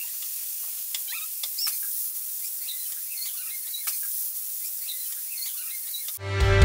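Aluminium stovetop pressure cooker venting steam past its weighted whistle valve once it has come up to pressure: a steady hiss with faint sputtering crackles.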